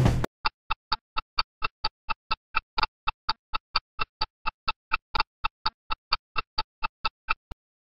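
Ticking sound effect: a steady run of short, sharp ticks, about four a second, with dead silence between them, ending with one sharper click near the end.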